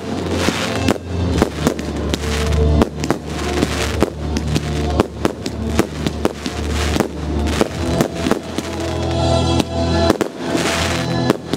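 Aerial fireworks shells bursting in rapid succession, a dense run of sharp bangs and crackles, over music playing throughout.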